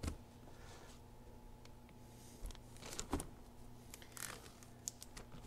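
Crappie fillets being dropped into a plastic zip-top bag of breading: a few faint, scattered rustles and crinkles of the bag over a low steady hum.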